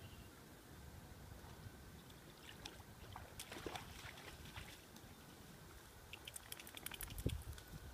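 Dog wading out of the shallows at a pond's edge, its legs splashing through the water in two bursts: about three seconds in and again near the end.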